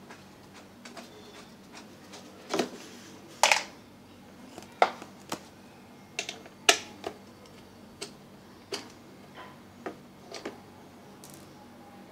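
Irregular clicks and taps of a screwdriver working the screws out of an air compressor's plastic fan cover, a dozen or so, a few of them sharp and loud.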